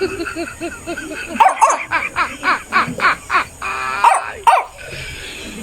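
Barking and yipping in quick runs, with a short whine just before two louder barks near the end.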